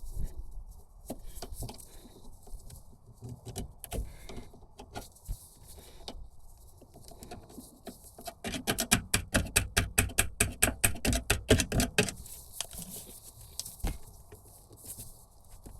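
Light handling knocks and rattles of metal parts, then a rapid run of ratchet clicks, about eight a second, lasting three or four seconds just past the middle.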